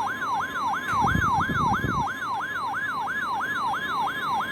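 NOAA Weather Radio alert: the steady 1050 Hz warning alarm tone, overlaid by a siren-like tone sweeping up and down about three times a second, announcing a flash flood warning. A brief low rumble passes underneath about a second in.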